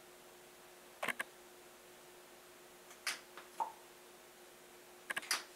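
Short, quiet clicks and taps of a liquid concealer tube and its doe-foot applicator wand being handled: a pair about a second in, two more a couple of seconds later, and a quick cluster near the end, over a faint steady hum.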